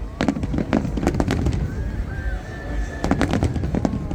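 Aerial fireworks bursting in quick clusters of sharp bangs and crackles over a continuous low rumble, with a busier flurry of reports about three seconds in.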